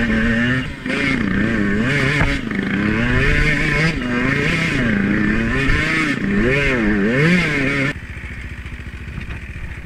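Dirt bike engine ridden on a rough trail, its pitch rising and falling again and again as the throttle is worked. About eight seconds in it drops suddenly to a low, steady idle as the bike comes to a stop.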